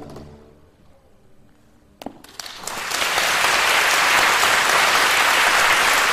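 The music's last chord fades out into a short hush, then audience applause breaks out about two seconds in, swelling within a second to steady, full clapping.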